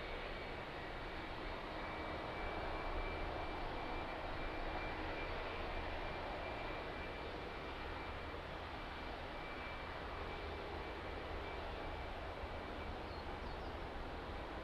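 Boeing 757 airliner's jet engines running: a steady rush of noise with a faint high whine, swelling slightly a few seconds in.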